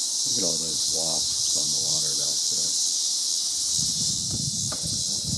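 A chorus of insects, a steady high-pitched drone with no break.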